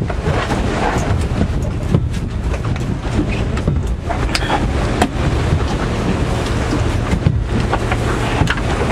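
Dive boat's engine running with a steady low hum, wind buffeting the microphone, and a few light knocks on the deck.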